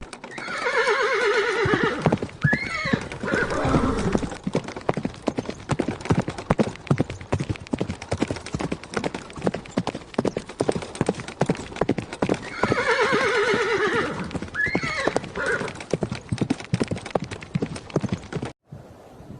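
A horse whinnies twice, about twelve seconds apart, each call a wavering neigh lasting two or three seconds. Between and under the calls comes a steady, rapid clip-clop of hooves, which cuts off suddenly near the end.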